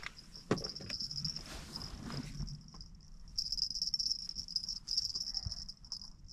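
A steady, high-pitched buzzing whine, loudest in the second half, with a few knocks and rustles in the first half.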